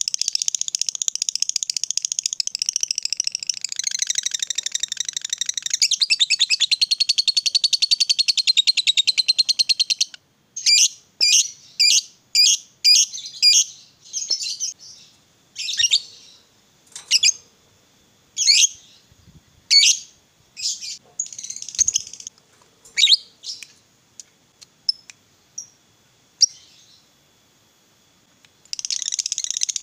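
Lovebird ngekek: a long, unbroken, rapid chattering trill for about the first ten seconds. Then comes a string of separate sharp chirps about once a second, and after a brief pause near the end the trill starts again.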